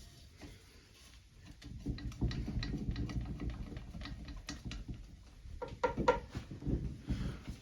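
Hand work on a dirt bike's exhaust silencer: irregular metallic clicks and rattles over low bumping and handling noise as the stock silencer is worked loose, loudest about six seconds in.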